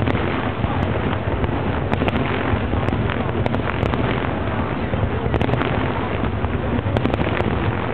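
Fireworks bursting at a distance: a continuous rumbling wash of detonations with scattered sharp cracks, heavily mixed with wind noise on the microphone.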